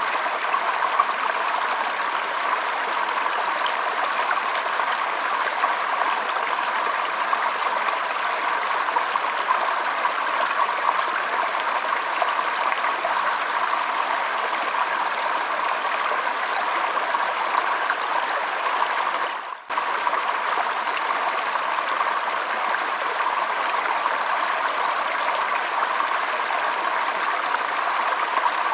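Shallow stream flowing and trickling in a steady wash of water noise. About two-thirds of the way through, the sound dips sharply for a moment and then comes straight back in.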